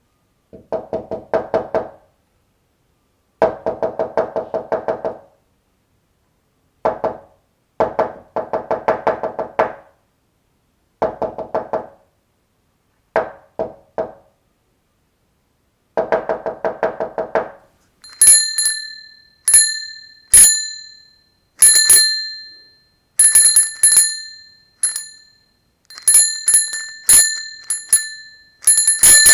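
Short bursts of rapid knocking or tapping, each burst a second or two long with pauses between. About two-thirds of the way in, a small metal bell takes over, struck about a dozen times, each ring dying away.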